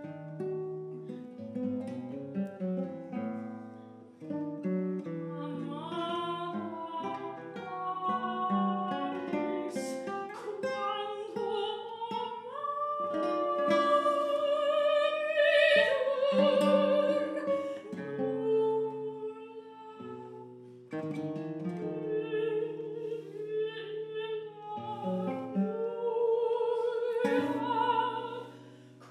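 Two classical guitars playing plucked accompaniment to a soprano singing a contemporary art song. The guitars play alone at first; the soprano's voice enters about six seconds in, singing with vibrato and at its loudest around the middle.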